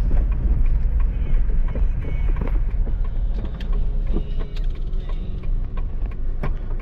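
Suzuki APV's engine running with a steady low rumble heard inside the cabin, with scattered clicks and knocks of things being handled.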